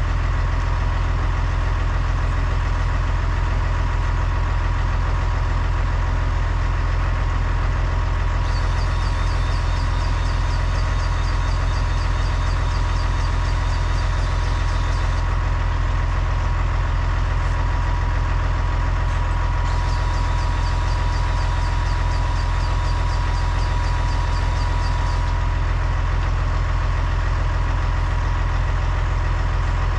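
Massey Ferguson tractor engine idling steadily with a post driver on its rear linkage. Twice, for several seconds each, a higher hiss with fast ticking comes in over the engine.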